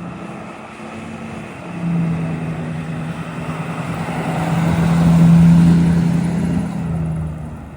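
Pickup truck engine running with a steady hum, getting louder to a peak about five seconds in and then easing off.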